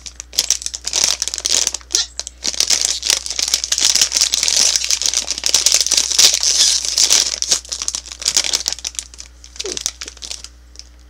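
Plastic Twizzlers candy bag crinkling as it is handled and torn open. The crackling is densest in the middle and thins out into a few rustles as a hand reaches into the bag near the end.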